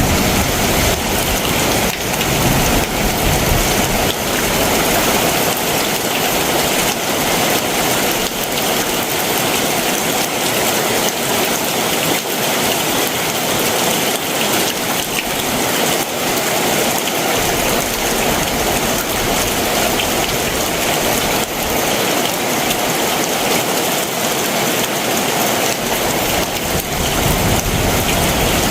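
Heavy monsoon downpour, rain pouring steadily onto surfaces as a dense, even hiss. A low rumble swells underneath in the first few seconds and again near the end.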